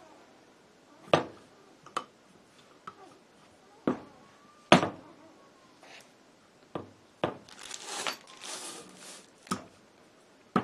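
Scattered sharp metal clicks and knocks as an SKS trigger group is worked into its receiver, with a stretch of rustling about three-quarters of the way through.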